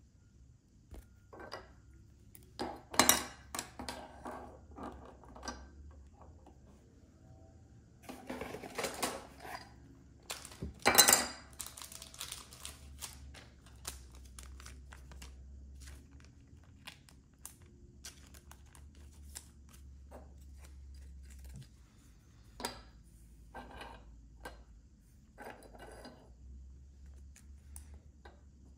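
Trading cards being handled and laid out on a table: scattered rustling and sharp clacks, the loudest a few seconds in and again about eleven seconds in.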